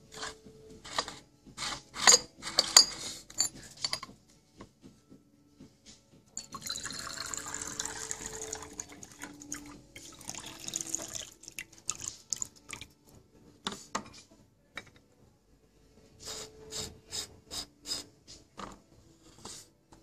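Yixing clay teapot handled with a quick series of sharp clinks and taps. Then water pours steadily from its spout into a glass pitcher for about five seconds, and more clinks follow near the end.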